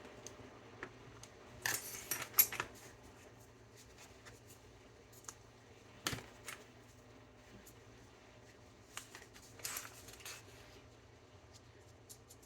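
Small hard parts and tools being handled on a workbench: scattered light clicks and short clattering rattles, the busiest about two seconds in and again near ten seconds.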